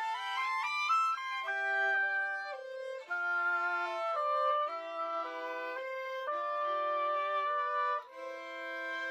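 Instrumental music: a violin playing a slow, held melody with a second sustained line beneath it, opening with a quick rising run.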